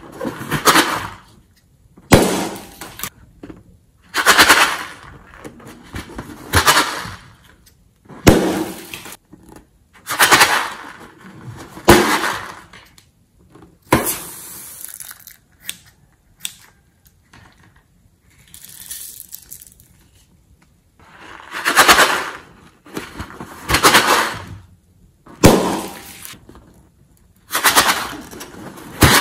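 Filled balloons cut open with a craft knife over a glass bowl: a sharp burst roughly every two seconds, each followed by about a second of the contents spilling into the bowl.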